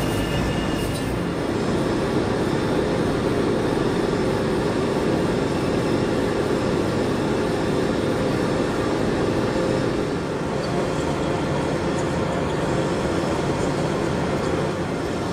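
A metal-working machine tool running steadily, a continuous mechanical noise with a faint steady whine.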